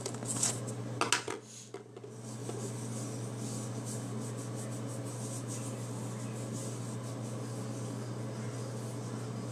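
A few sharp knocks and rustles of handling in the first two seconds, then a steady low hum with faint hiss.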